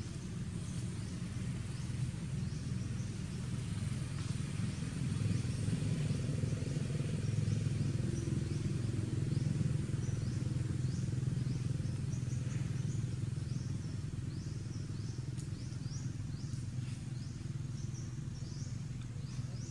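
Outdoor ambience: a low, steady rumble that swells about midway and then eases off, under many short, high chirps repeating throughout.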